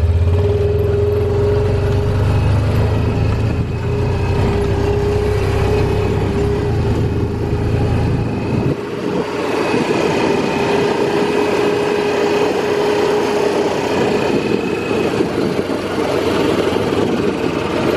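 Side-by-side utility vehicle driving with its engine running and a steady whine, under a low rumble that drops away about nine seconds in.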